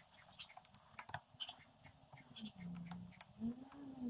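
Faint, scattered small clicks and taps of metal alternator parts and tools being handled on a bench. In the second half a low hum comes in, rising and falling near the end.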